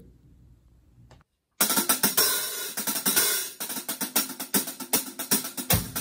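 Dream Bliss 13-inch hand-hammered hi-hats played with drumsticks in a quick, even pattern, starting about a second and a half in. A deeper drum hit joins near the end.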